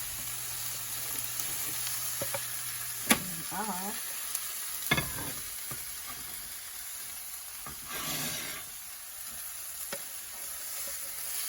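Tomato-and-shrimp omelette frying in oil in a pan over high heat, a steady sizzle with two sharp clicks near the middle.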